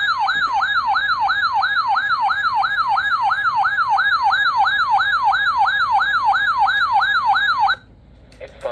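Electronic siren-style alert tone from a weather alert radio. It wails rapidly up and down, about three cycles a second, then cuts off abruptly near the end, signalling an incoming weather alert broadcast.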